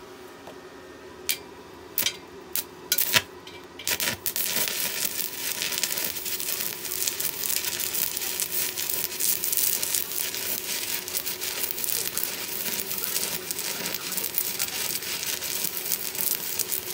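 Shielded metal arc (stick) welding with a 1/8-inch 7018 electrode at 100 amps on an Orange Pums 140-amp inverter welder: a few sharp snaps as the arc is struck, then from about four seconds in a steady crackle as the arc burns.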